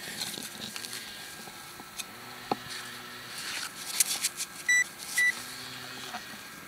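Hand digger cutting and scraping a plug of turf and soil, making scattered clicks and scrapes, with two short electronic beeps from the metal-detecting gear about five seconds in as the target is closed in on. The small gas engine of a radio-controlled car hums faintly behind, rising and falling in pitch.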